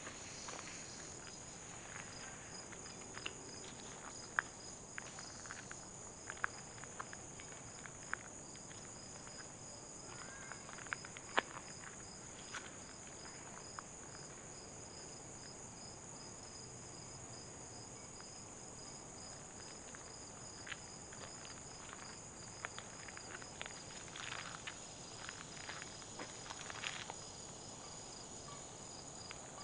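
Steady high-pitched chorus of summer insects, one strand of it pulsing rapidly, with scattered light clicks and crunches of footsteps and brush, busier near the end.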